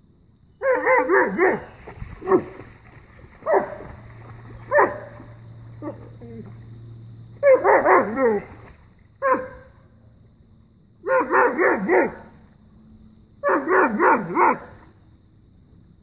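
German Shepherd barking at the creek water, in rapid volleys of three or four barks with single barks in between.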